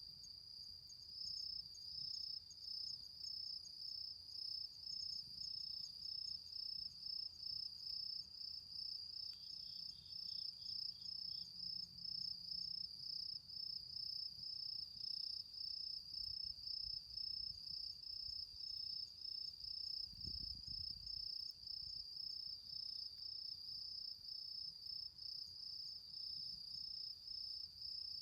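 Autumn insects calling: a continuous high-pitched trill that pulses about one and a half times a second. A second insect gives a short run of about six chirps about a third of the way in.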